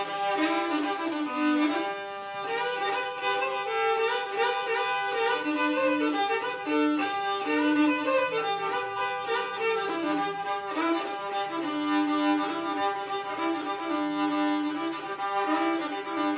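Unaccompanied old-time fiddle playing an instrumental break of the tune, bowing a melody over a steady held drone note.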